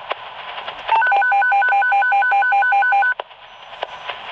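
Emergency dispatch radio alert tone: a two-note high-low warble over radio hiss, starting about a second in and cutting off about two seconds later.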